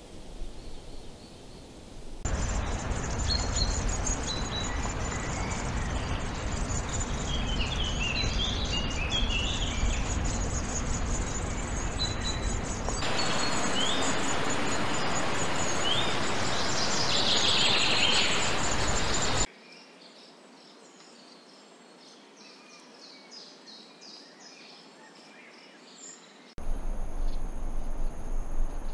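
Layered nature ambience: a steady rushing noise with birds chirping over it. The background changes abruptly several times, and a quieter stretch in the second half holds many quick, high chirps.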